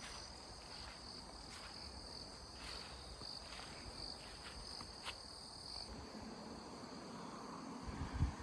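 Insects trilling, a steady high-pitched pulsing trill that stops about six seconds in, with scattered light clicks and a few low thumps near the end.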